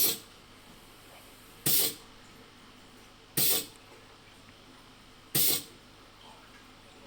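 Compressed-air-driven digital vacuum leak tester hissing in four short bursts, roughly every two seconds. The tester is topping the sealed test chamber back up to its 22 kPa set point while it holds the vacuum.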